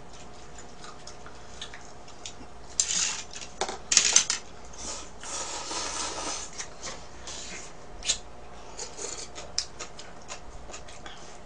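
Table-eating sounds: chopsticks and utensils clicking against a ramen bowl and plastic side-dish containers, many small clicks with a few louder bursts about three and four seconds in and a rustling, noisy stretch around the middle.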